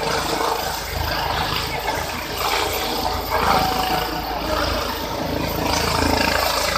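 A light helicopter lifting off and climbing away: a loud, steady rush of rotor and turbine noise with a fast low chop from the blades, mixed with the noise of a large crowd.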